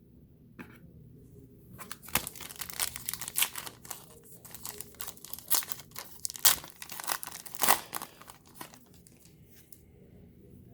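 Plastic trading-card pack wrapper being torn open and crinkled: a burst of dense crackling and sharp rustles that starts about two seconds in and dies away near the end.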